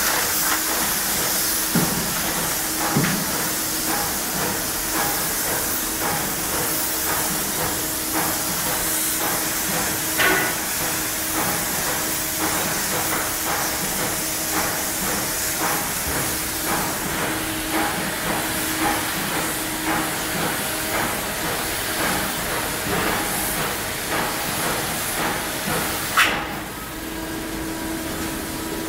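Polyurea spray gun hissing steadily as it atomises the coating onto a truck bed liner, over a steady low hum with a run of light ticks. The spray cuts off sharply with a click near the end.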